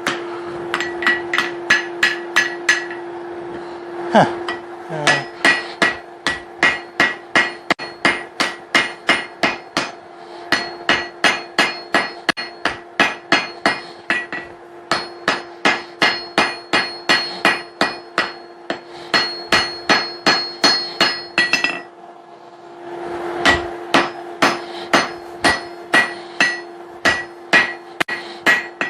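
Hand hammer blows on hot steel over an anvil, forging a hammer eye punch to a taper: quick, even strikes about three a second, each with a bright ring, in runs broken by two short pauses. A steady low hum runs underneath.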